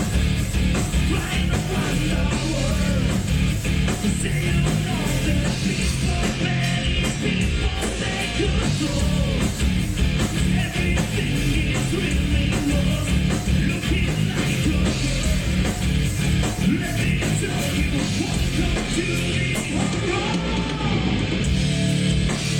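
Heavy metal song: a full rock band playing steadily, with a yelled vocal over it.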